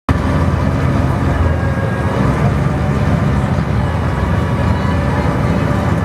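Ferry engine running steadily, a constant low drone with a few steady higher tones over it.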